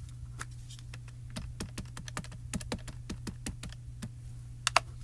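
Ink pad dabbed again and again onto clear photopolymer stamps: a quick run of light taps, about four or five a second, then two sharper clicks near the end.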